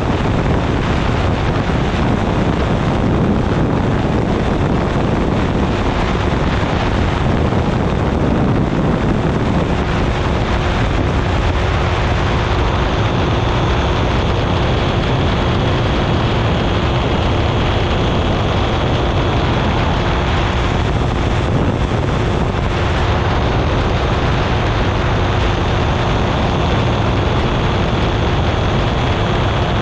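Weight-shift microlight trike in cruise flight: its pusher engine and propeller run steadily under a constant rush of wind over the wing-mounted camera's microphone. A thin steady tone sits over the noise from about a third of the way in.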